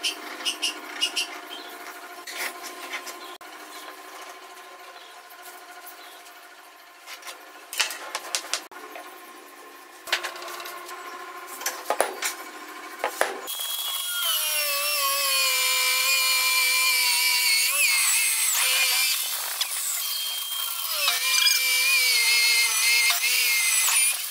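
Scattered knocks and taps of hand tools on wood, then, about halfway in, a power drill starts. Its whine dips and recovers as the bit bores into the hardwood.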